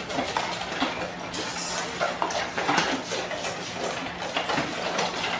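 Several dogs eating from stainless steel bowls, with many quick clinks and rattles of the metal bowls as they eat.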